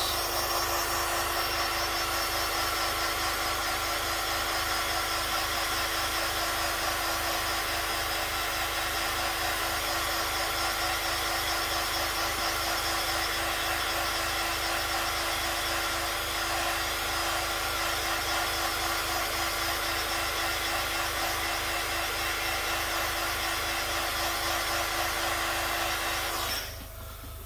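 Hair dryer running steadily, blowing warm air to dry a fresh airbrushed coat of paint: an even whoosh with a steady hum in it, switched off about a second before the end.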